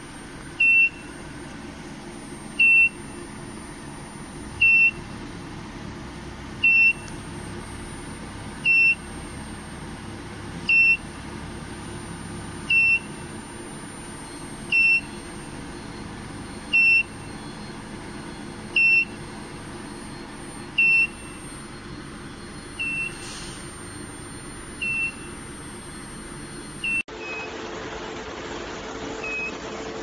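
Alarm buzzer of a portable induction preheat heater giving short, high, single-tone beeps about every two seconds over a steady hum. The beeps grow fainter over the last few seconds.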